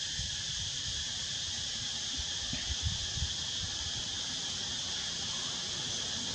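Steady high-pitched insect chorus, an unbroken buzz with no change in rhythm, joined by a few soft low thumps near the middle.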